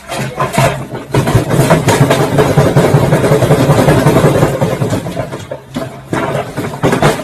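Washing machine running with a brick inside: a steady motor hum under continuous knocking and clattering, dipping briefly near the end.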